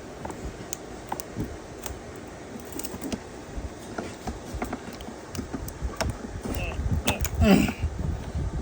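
Scattered small clicks and knocks of parts and tools being handled, with a voice speaking briefly near the end.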